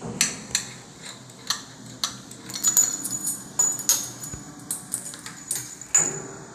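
Spiral metal shower hose and chrome shower fittings clinking and rattling as they are handled, a string of sharp, irregular metallic clicks.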